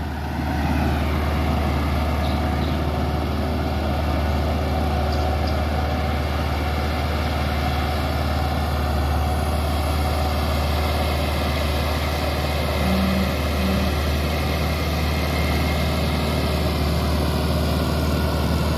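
New farm tractor's diesel engine running steadily under load as it pulls a tine cultivator through the soil, being run in.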